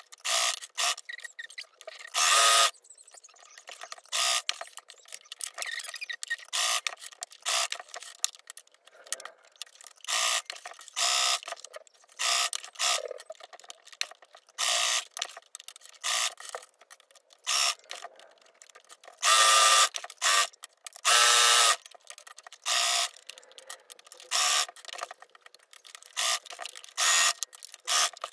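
Singer electric domestic sewing machine sewing a straight stitch through layers of fabric in repeated short runs. The needle stops and starts again and again as the fabric is turned, with a few longer runs of about a second.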